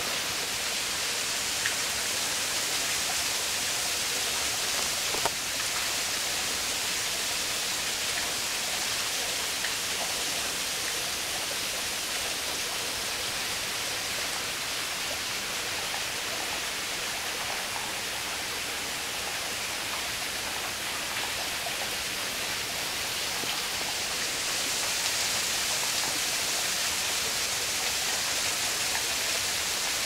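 Water running at a mostly frozen waterfall: a steady, even rushing hiss that grows a little louder near the end, with a few faint ticks.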